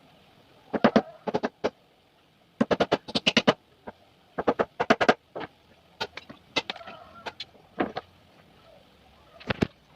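Sharp knocks in quick runs of three to six strikes, several times over with short pauses between, from hand work on wooden boards.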